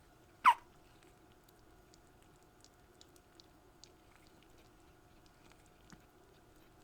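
A young kitten gives one short, high mew that falls quickly in pitch, about half a second in. Faint scattered ticks and scratches follow.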